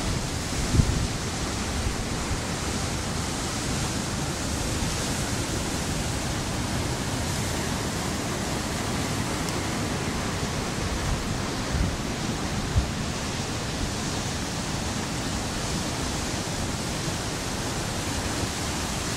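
Steady rushing noise of heavy ocean surf breaking over a reef and washing white water across the rocks, with two brief low thumps, one about a second in and one about two-thirds of the way through.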